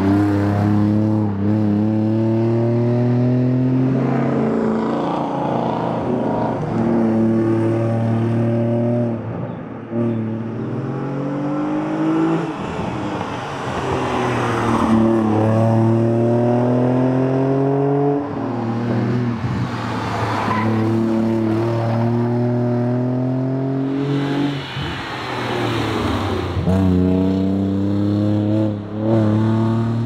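Jaguar S-Type X200 rally car's engine revving hard under acceleration, the pitch climbing steadily and then dropping sharply at each upshift, over and over through the gears.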